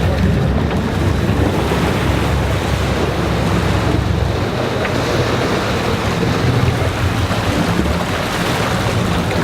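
A boat running on the ocean: a steady low engine drone and rushing water, with wind buffeting the microphone. The deepest rumble eases about halfway through.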